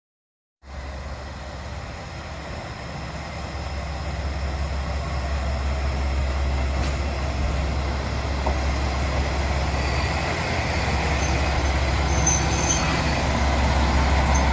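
Diesel railcar on the San'in Main Line approaching with a deep engine rumble, growing steadily louder, with short high-pitched squeals near the end.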